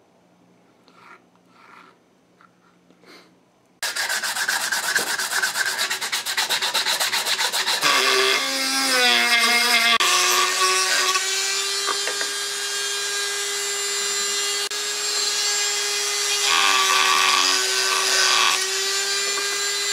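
Small handheld rotary tool cutting into the wood and filler of a rifle stock. It starts abruptly about four seconds in with a fast rasping, and a little later the motor whine rises and holds steady while the cutter grinds, after a few faint taps at the start.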